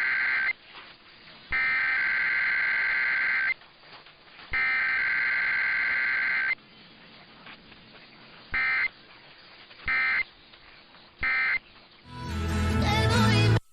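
Emergency Alert System digital header bursts: three electronic data bursts about two seconds long, a second apart, then three short end-of-message bursts. Near the end a louder swell of sound with gliding tones rises and cuts off suddenly.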